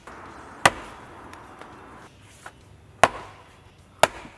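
Axe striking a cedar round on a chopping block: three sharp chops, the first about half a second in and the other two a second apart near the end. The blade is biting at a knot, where the wood is tough to split.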